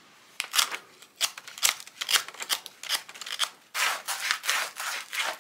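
Diesel glow plug being rubbed clean with sandpaper to scour off carbon: quick scratchy back-and-forth strokes, about two or three a second.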